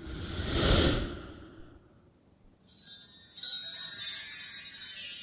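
A whoosh sound effect swells and fades in the first second and a half. Then, about two and a half seconds in, a bright, tinkling bell-like music sting starts and carries on.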